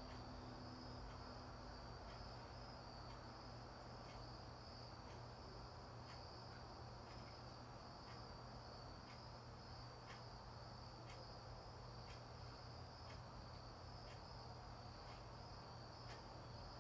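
Crickets chirping faintly: a steady high trill with soft, regular pulses about once a second.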